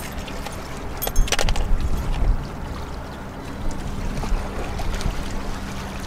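Wind buffeting the microphone with a rumbling noise, over a faint steady low hum, and a short cluster of sharp clicks about a second in from handling the fish and scale.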